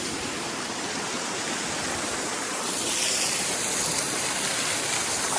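Rushing stream water, a steady hiss that gets brighter and a little louder about halfway through.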